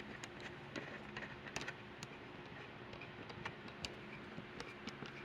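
Small screwdriver driving a laptop CPU heatsink screw down into the frame: faint, irregular clicks and ticks of the bit turning in the screw head.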